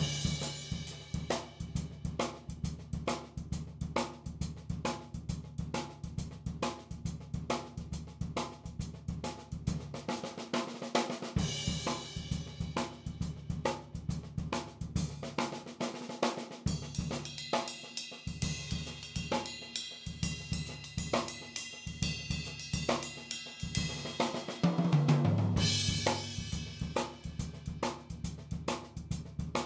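Background music led by a drum kit playing a steady beat, with hi-hat and cymbals and a low bass line underneath.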